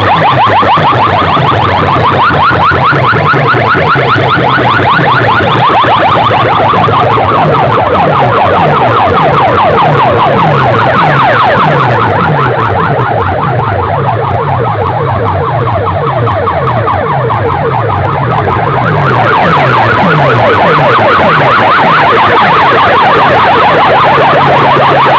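A very loud, alarm-like electronic competition track played through a DJ sound-box system. Fast repeating warbling sweeps run over a stepping bass pattern. The treble drops away for several seconds in the middle, then returns.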